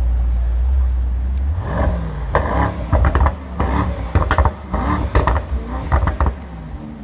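Mercedes-AMG GT 63 S twin-turbo V8 idling with a deep rumble, then, from about a second and a half in, a rapid series of short rev blips with sharp exhaust crackles before it settles back to idle.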